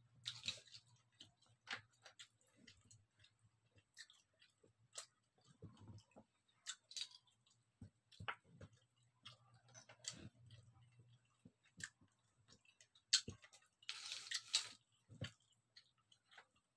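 Faint clicks and taps of scallop shells and wooden chopsticks as scallops on the half shell are handled and picked from a plastic tray, with quiet chewing between them. A brief clatter of shells near the end.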